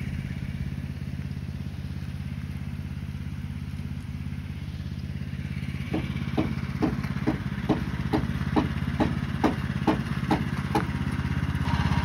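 Portable sawmill's engine running steadily at an even, idle-like speed. About halfway through, a regular clicking starts, roughly two clicks a second, and goes on for about five seconds before stopping.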